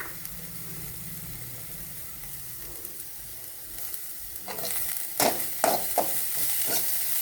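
Vegetables sizzling in hot oil and butter in a kadai, a steady hiss; about halfway through, a spoon starts stirring them, scraping against the pan in a quick run of sharp strokes. The pan holds fried onion and green chilli with freshly added grated carrot.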